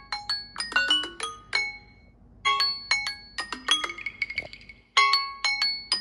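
Samsung Galaxy Z Flip's timer alarm tone ringing after the countdown has run out. A quick run of bright, bell-like mallet notes repeats as a phrase about every two and a half seconds.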